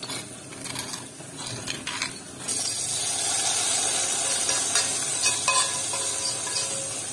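A metal spoon scrapes and clicks against a wooden mortar and a pan. About two and a half seconds in, a steady sizzle starts as garlic and basil in hot oil are tipped from the frying pan into a pot of tomato juice, with a few clinks of the spoon on the pan.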